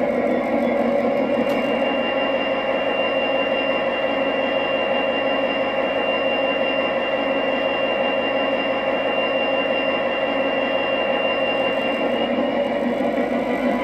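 Diesel locomotive engine sound from an ESU LokSound XL sound decoder, played through the speaker of a G-scale USA Trains SD70MAC model, running steadily with a thin high whine over the engine rumble.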